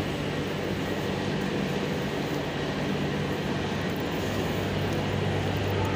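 A Madrid Metro train pulling into the station: a steady low hum and rumble that grows slightly louder.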